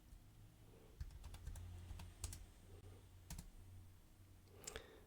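Faint computer keyboard typing: scattered key clicks from about a second in until near the end, over a low hum.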